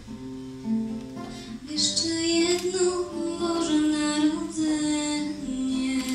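A girl sings solo into a microphone with acoustic guitar accompaniment, holding long sung notes that grow louder in the middle.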